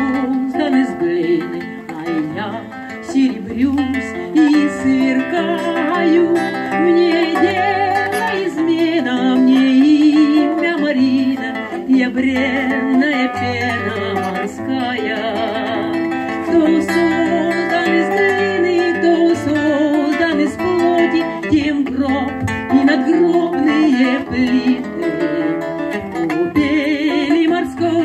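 Acoustic guitar music with a voice singing over it, playing on without a break.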